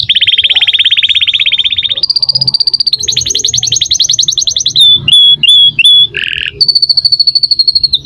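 Domestic canary in full, continuous song: a chain of rapid trills, each held a second or two before jumping to a new pitch, with four short down-slurred notes and one lower chirp about two-thirds of the way through.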